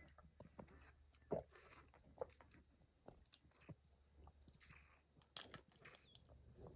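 A person chewing food with faint, irregular mouth clicks and smacks, one louder about a second and a half in.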